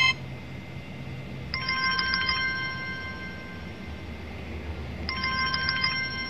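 Smartwatch's small built-in speaker playing an alarm-tone preview: a short electronic ringing trill, heard twice about three and a half seconds apart.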